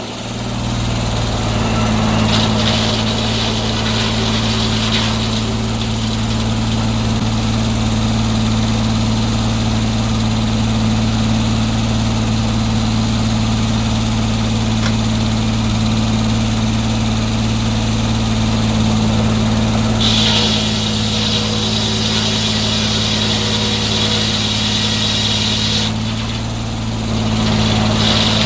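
Sawmill engine running steadily at an even speed, with a slight dip in level about two-thirds of the way through.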